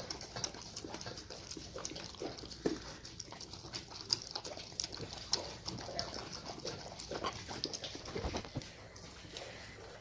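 Black-and-tan Jindo mix dog eating soft rice-and-carrot food from a stainless steel bowl: a fast run of wet smacking and chewing sounds with clicks in the bowl, thinning out near the end.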